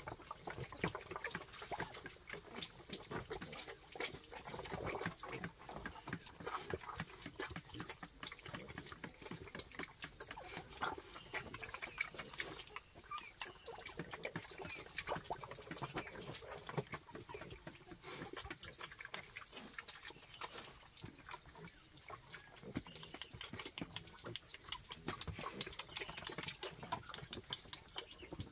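Wild boar piglets eating from a person's hand: dense, irregular small clicks and smacks of chewing, with soft pig grunts.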